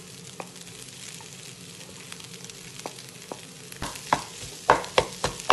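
Boiled potato being stirred into a vegetable and fish mixture frying in a pan, with a low sizzle. From about four seconds in, the stirring utensil knocks and scrapes sharply against the pan several times.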